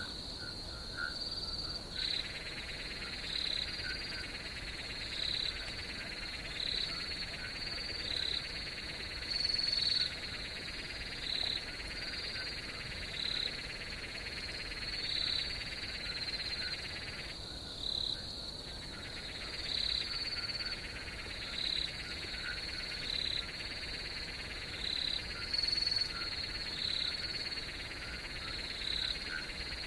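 Steady high-pitched insect chorus, with a short chirp repeating about every two seconds.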